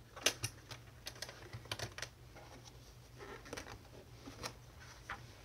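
Irregular light taps and clicks as a spiral-bound sketchbook with a kraft-paper cover is handled on a wooden desk and its cover opened.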